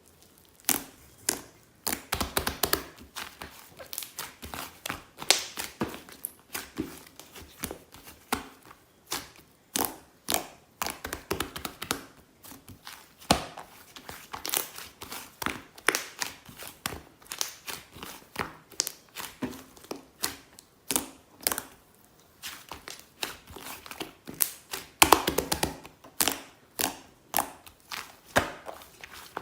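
Close handling of small objects: a steady run of irregular taps and clicks, with short stretches of crinkling like paper or plastic being handled.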